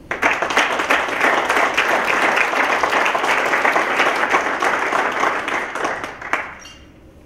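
Audience applauding, starting at once and dying away after about six seconds.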